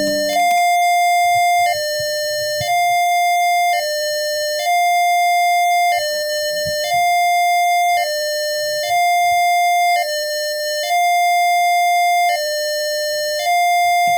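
Simulated Arduino piezo buzzer in the Wokwi simulator playing a slow two-tone ambulance siren. A harsh, buzzy electronic tone steps between a higher and a lower note about once a second, steady and repeating.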